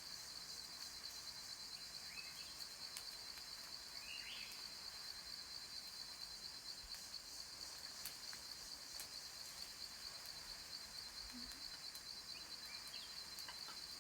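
Cicadas buzzing in a steady, high, even drone, with a few short faint chirps about two and four seconds in and again near the end.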